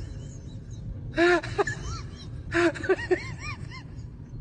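A few short vocal cries in two quick clusters, each cry rising and falling in pitch, over a steady low background rumble.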